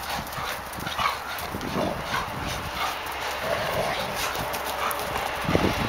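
Belgian Tervuren shepherds playing tug-of-war over a rope toy: quick scuffling paws on dry, needle-strewn forest ground, with short dog sounds. Near the end a low rumble of wind on the microphone comes in.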